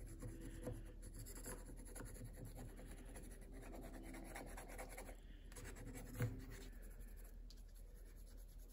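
Faint scratching of a pencil on paper in quick, loose, messy strokes. There is a light tap about six seconds in.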